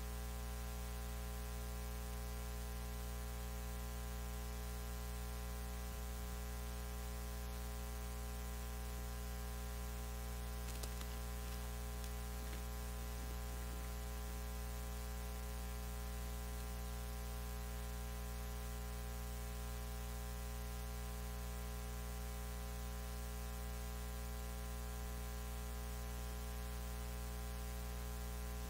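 Steady electrical mains hum with an even hiss over it, and nothing else.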